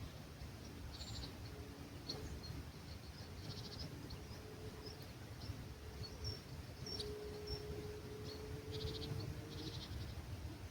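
Small birds giving short high chirps and a few rapid trills, over a low rumble of breeze. A faint steady hum comes in around the middle and rises slightly in pitch.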